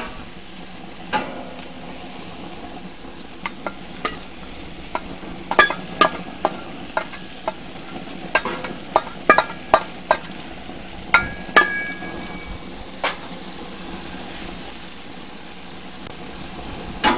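Ground beef and diced onions sizzling on a hot griddle plate, a steady hiss, with a flat metal spatula scraping and clanking against the plate and a steel bowl as the onions are scraped out. About two-thirds of the way in, a couple of the clanks ring on briefly.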